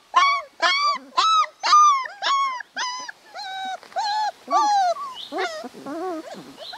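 Saluki puppy whining in a quick series of short, high, arched cries, about two a second; after about three seconds the cries turn softer and lower in pitch.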